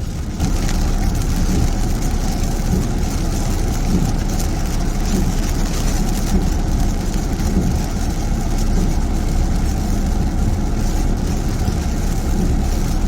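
Steady in-cabin noise of a car driving in heavy rain: engine and tyres on a wet road, with rain on the car body.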